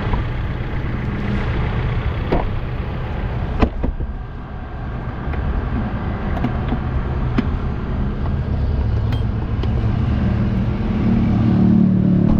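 Suzuki APV van under way on a road test, its four-cylinder engine running with road noise from inside the cabin and a few light clicks. The engine note grows louder near the end as it pulls. This is after the ignition coil was replaced, and the misfire and shaking are gone.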